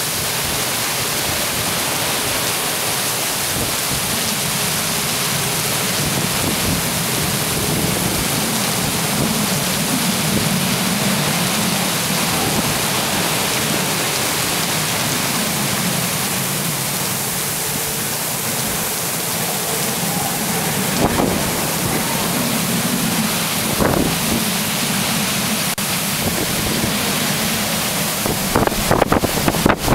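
Heavy downpour in strong wind: a steady, loud hiss of rain. A few short knocks come through about two-thirds of the way in and several more near the end.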